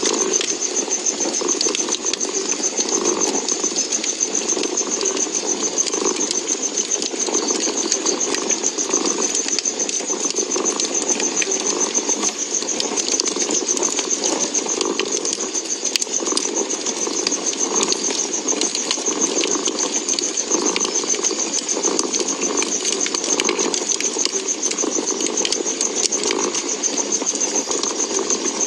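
A cat purring steadily over the crackle of a wood fire in a fireplace, with scattered small pops and snaps throughout.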